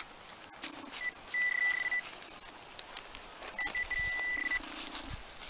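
Metal detector's electronic target tone: a steady high beep that sounds in short stretches, a blip and then under a second of tone early on, and about a second more, briefly broken, past the middle, as the detector closes in on a metal target in the dig hole. A lower buzz comes twice, with scraping and rustling of soil and leaf litter around it.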